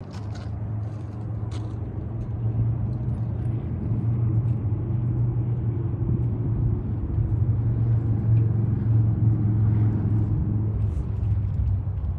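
Low, steady engine rumble of a motor vehicle running nearby, growing louder through the middle and easing off near the end.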